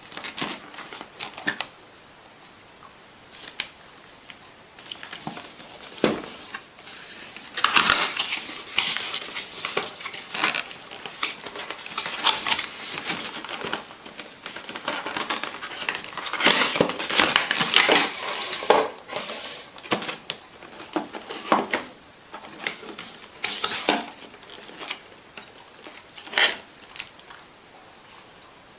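Irregular handling noises: rustling and crinkling mixed with clicks and light knocks, busiest in the middle stretch.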